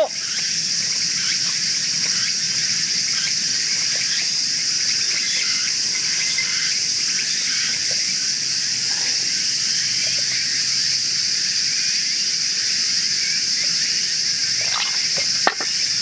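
Steady, high-pitched chorus of insects filling the air without a break, with a single soft knock near the end.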